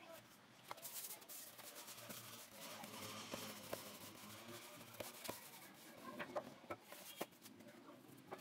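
Faint handling sounds of brioche dough being worked on a floured wooden board: soft rubbing of hands on the dough, with several light knocks and clicks as a rolling pin is handled.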